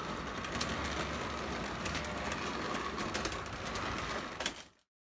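Lionel O gauge toy train with scale freight cars and a Hudson steam locomotive running on the track: a steady rumble with a steady whine and rapid, irregular clicks. It cuts off abruptly near the end.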